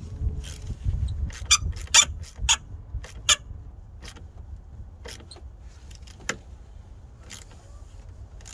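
A run of sharp metallic clicks and clinks, about six between one and three and a half seconds in and a few more between five and seven and a half seconds, from hand tools working on the car battery's terminal connections, over a steady background rumble.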